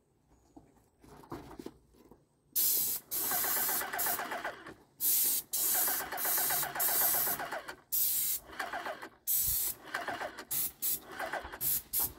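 Paint spray gun hissing in bursts as the trigger is pulled and released between passes across the wall, with short gaps between sprays. The spraying starts a couple of seconds in, after a quieter lead-in.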